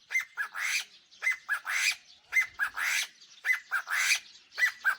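A bird singing loudly, repeating the same phrase about once a second, five times over. Each phrase is a couple of quick falling notes followed by a harsh, rasping burst.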